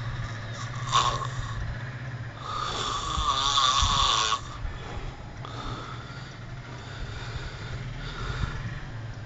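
A sleeping man snoring: a short snore about a second in, then one long, loud, rattling snore from about two and a half to four and a half seconds in.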